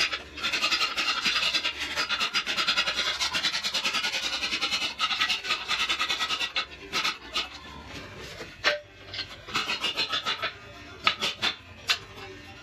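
Hand ratchet wrench clicking in fast, even runs as a bolt on the car's underside is worked, then scattered single clicks and knocks.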